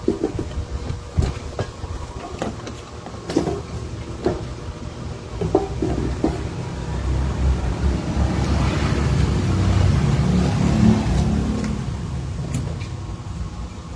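Light clicks and knocks of hands working electrical wires into a plastic junction box. A passing vehicle's low rumble swells from about halfway, is loudest near ten seconds and fades again.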